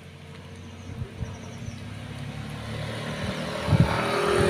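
A motor vehicle's engine grows steadily louder as it approaches along the road. A few short low thumps come about a second in and again near the end.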